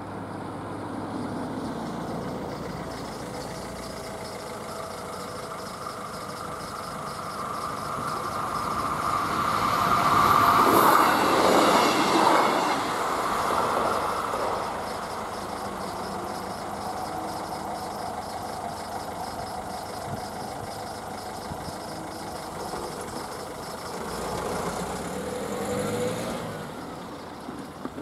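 Electric local passenger train passing over a level crossing, building up and loudest about ten to thirteen seconds in, then fading, over the crossing's steady warning bell, which stops near the end as the barriers open.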